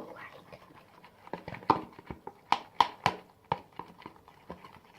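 Hands squishing and poking homemade slime: irregular sticky clicks and snaps, clustered most thickly about two and a half to three seconds in.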